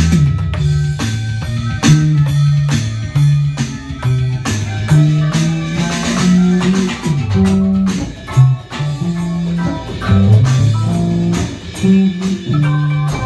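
Live improvised jam of electric bass guitar, drum kit and electronic keyboard, the bass line loudest.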